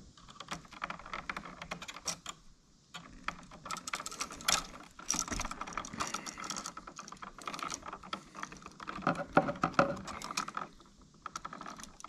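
Needle-nose pliers and a screwdriver working bare copper ground wire onto a light switch's screw terminal: an irregular run of small metal clicks and taps as the wire is curled into a hook and the screw is turned.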